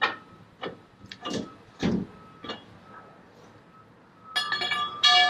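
Metal cargo load bar being released from a keg truck's bay: a string of clicks and knocks, with a heavy thump about two seconds in. Near the end the bar clanks and rings as it is set down on the pavement.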